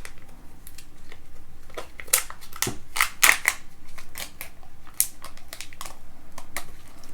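Kinder Joy plastic egg and its toy capsule being opened by hand: irregular sharp plastic clicks and crinkly crackles, the loudest cluster about two to three seconds in.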